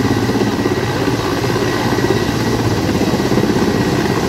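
Helicopter hovering, its rotor and engine making a steady, rapid thrum.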